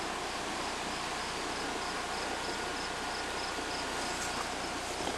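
Crickets chirping in a steady, even rhythm over a constant hiss of background noise.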